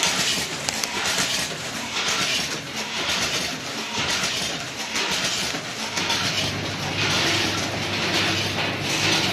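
Automatic snack packaging machine (a multihead weigher feeding a flow wrapper) running: a steady mechanical clatter that swells and eases in a regular cycle, with a low hum joining about six seconds in.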